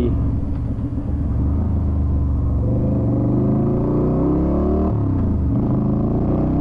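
Yamaha Virago XV250's air-cooled V-twin engine, fitted with pod air filters, revving up as the motorcycle accelerates, heard from the rider's helmet camera. About three-quarters of the way through the revs drop suddenly at an upshift, then climb again.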